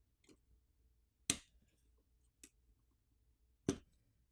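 About four small, sharp clicks and taps of fingers handling a smartphone's charger port flex cable and frame as it is peeled free, the loudest about a second in, with quiet between them.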